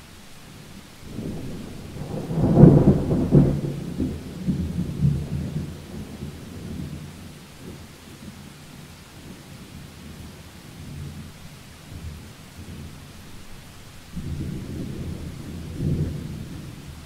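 Steady rain with two rolls of thunder. The first starts about a second in, is loudest a couple of seconds later and rumbles away over several seconds. A second, shorter rumble comes near the end.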